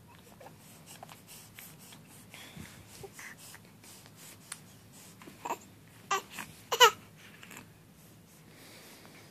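Two-to-three-month-old baby cooing: a few short vocal sounds between five and seven seconds in, the last the loudest with a wavering pitch.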